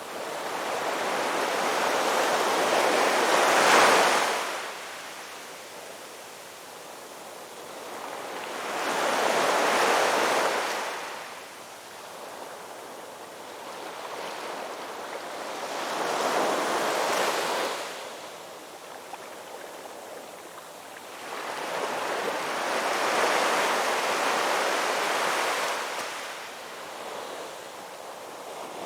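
Ocean surf: waves breaking and washing in, swelling and fading four times, about every six to seven seconds.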